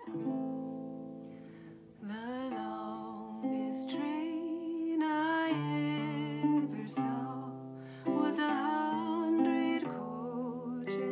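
Nylon-string classical guitar: a chord struck at the start rings and fades, then slow strummed chords as a woman starts singing a slow folk ballad about two seconds in.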